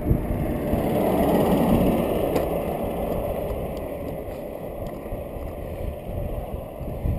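Wind rushing over the microphone and road noise while cycling along a road, easing off a little after the first couple of seconds.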